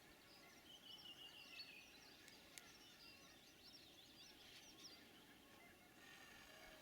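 Faint songbird chorus: many birds chirping and twittering, with a short falling trill about a second in.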